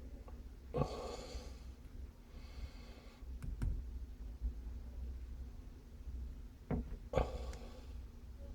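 Breaths close to the microphone, three audible nose exhales, with a few light clicks and knocks as a handheld RFID reader is handled and worked one-handed, over a low steady hum.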